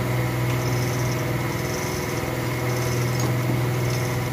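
A steady mechanical hum of a running motor: one low pitch with a stack of overtones, unchanging in pitch and level.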